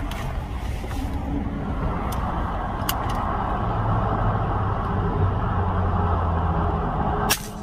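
A truck's engine running as the truck is moved slowly into position, heard from inside the cab: a steady low hum that grows a little stronger midway, with one small click. The sound drops away abruptly near the end.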